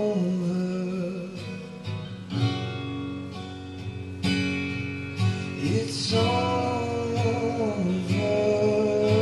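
Acoustic song: strummed acoustic guitar with a sung vocal line holding long notes.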